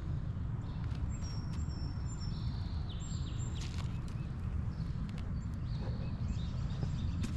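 Wind buffeting the microphone as a steady low rumble, with a bird singing high, flat whistled notes that step up and down in pitch, and a few light clicks and taps.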